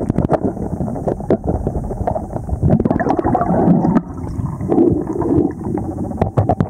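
Muffled underwater noise of a river bed: a steady low rush peppered with many small clicks and knocks, as from gravel and silt being disturbed.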